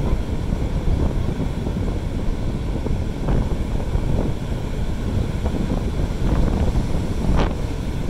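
Wind buffeting the microphone over the steady rumble of ocean surf breaking on the beach.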